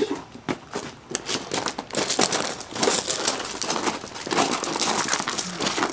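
Crinkling and rustling, a dense run of small crackles that grows louder and thicker from about a second in.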